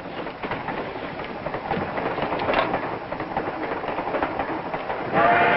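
Train running: a steady rumble with a clatter of wheels over the rails. Near the end a train whistle starts sounding steadily.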